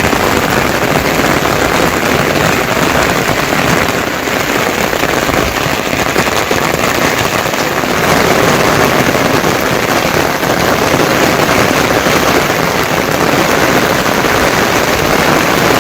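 Heavy monsoon rain: a dense, steady hiss of countless drops hitting, with a crackling texture, getting slightly louder about halfway through.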